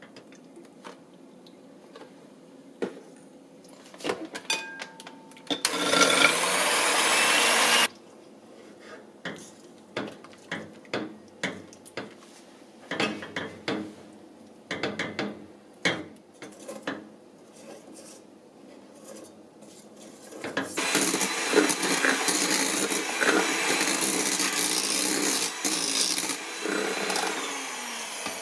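A wire whisk clicking and scraping against a steel saucepan as chocolate is stirred into hot cream. An electric hand mixer runs steadily, briefly about six seconds in and again for the last seven seconds, whipping cream to firm peaks in a large enamel bowl.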